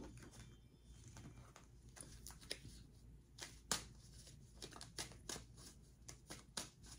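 A deck of cards being shuffled by hand: faint, irregular flicks and rustles, several a second, with one louder snap near the middle.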